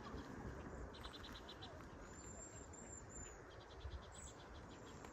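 Faint animal calls by a pond: two short trains of rapid, high-pitched clicking chirps, about eight a second, with a thin, high, wavering whistle between them, over a low steady outdoor hum.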